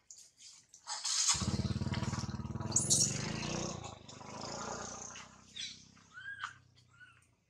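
A motorcycle engine running close by, coming in loud about a second in and easing off after a few seconds. A few short, high squeaks from a baby long-tailed macaque come near the end.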